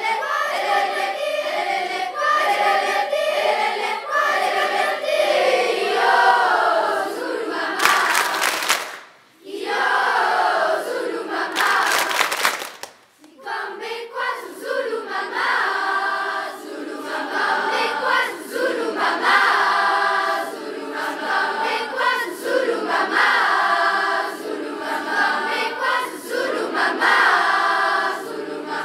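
A large school choir of young teenagers singing together. About 8 and 12 seconds in, the singing breaks for two short bursts of noise, each followed by a brief pause before the singing resumes.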